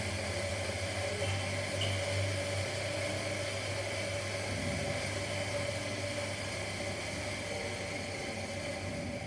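Electric coffee grinder running steadily, a motor hum under an even grinding noise, cutting off near the end.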